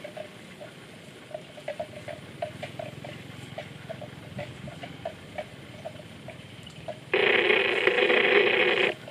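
Water buffalo calf grazing, with soft irregular clicks of grass being cropped and chewed. About seven seconds in, a loud steady ringing tone starts and stops sharply after almost two seconds, like a telephone ring.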